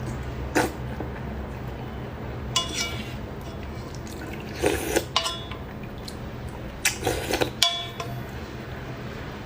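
Eating noodle soup: a utensil clinks against a bowl a few times with short ringing tones, among wet slurping and handling sounds.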